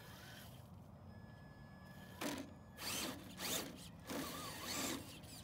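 Electric drive of a Traxxas TRX-4 RC rock crawler whirring in about five short throttle bursts, starting about two seconds in, as the truck pushes its nose into a boulder to climb it.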